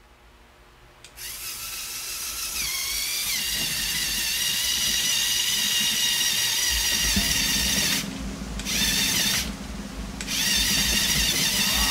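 Lego Technic electric motors whining as they drive a plastic gear train, powering the geared multi-wheeled vehicle up a steep ramp. The whine starts about a second in and dips in pitch briefly early on. It cuts out twice for a moment near the end.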